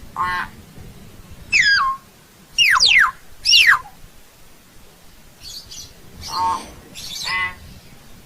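Common hill myna calling: a short harsh call, then three loud whistles that slide down in pitch, the last the loudest, followed by three more harsh, buzzy calls.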